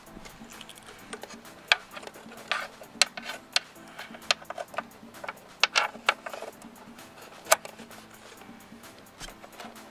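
Irregular sharp clicks and knocks of hands working mounting hardware into a car headlight housing, the loudest about two seconds in and near the end, over faint background music.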